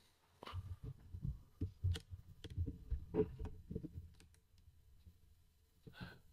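A series of irregular soft knocks and clicks with low thumps, a few a second, lasting about three and a half seconds, then a brief faint sound near the end.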